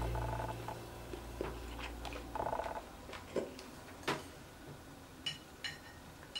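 Scattered light clicks and taps, about one a second, of chopsticks and fingers handling braised pork ribs in a ceramic bowl. The tail of soft background music fades out in the first second or two.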